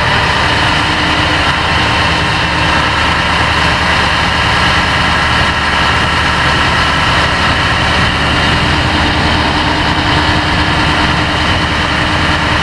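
Fire tender's diesel engine running steadily to drive its fire pump, with the roof water cannon jetting water.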